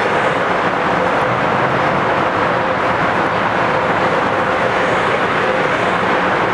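Light rail train running past close by along the platform: a steady, loud rush of wheels on rail with a faint steady hum running through it.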